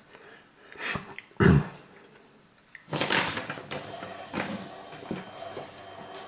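A short throat clearing about a second and a half in. Then, about three seconds in, a Canon iP90 inkjet printer's mechanism starts up and runs steadily with a hum of several tones, the printer working through a print-head cleaning cycle.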